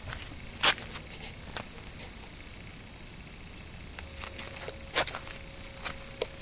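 A steady high-pitched hiss with a few sharp clicks over it, the loudest about a second in and another near five seconds.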